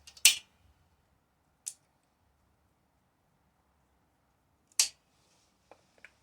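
A few sharp clicks and clinks of small parts and hand tools being picked up and set down, with quiet gaps between. The loudest come just after the start and about five seconds in.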